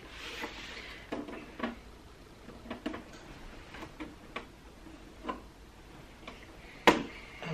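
Light, irregular plastic clicks and taps from hands handling the plastic casing and small holder compartment of a Cricut Explore Air 2 cutting machine, about one or two a second, with one sharper click near the end.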